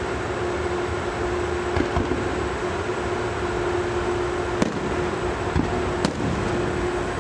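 Fireworks going off: a few separate sharp bangs, the two loudest about four and a half and six seconds in, over a steady background rumble with a constant low hum.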